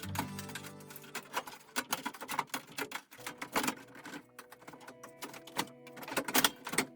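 Irregular clicks and light knocks of hand work, the loudest cluster near the end, over quiet background music.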